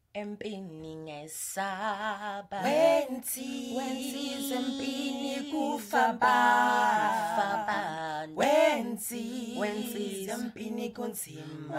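A cappella singing by one young male singer, his voice multitracked into three-part harmony with no instruments, moving through long held chords with swooping pitch changes.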